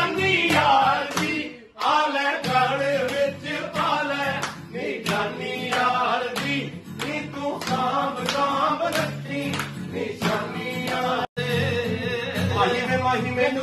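Several men singing a Punjabi song together to a strummed acoustic guitar, with hand claps. The sound breaks off briefly twice, about two seconds in and near the end.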